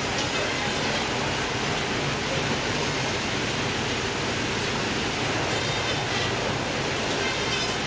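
Fish-processing line running: stainless-steel machinery and plastic conveyor belts make a steady, even rushing noise.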